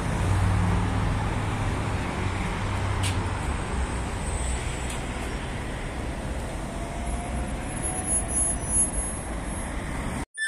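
City street traffic: cars and other road vehicles running and passing in a steady rumble, with one engine's hum loudest over the first few seconds and a single click about three seconds in.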